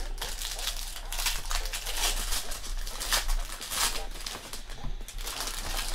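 Foil wrapper of a trading-card pack being torn open and crinkled by hand: an irregular run of sharp crackles.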